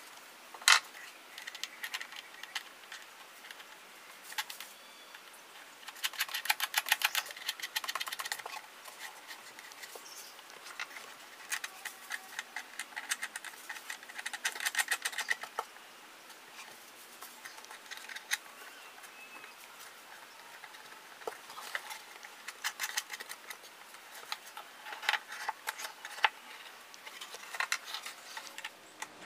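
Metal flying bracket on a speaker cabinet being handled: a sharp click about a second in, then several bursts of rapid clicking and rattling.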